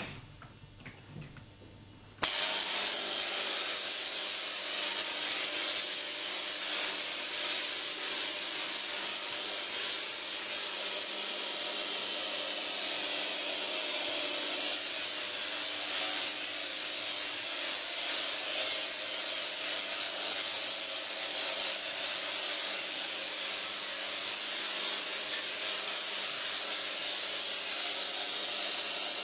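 Homemade spark-gap Tesla coil switching on about two seconds in and then running continuously: a loud, steady, harsh buzzing hiss of the spark gap firing and the small sparks at the toroid.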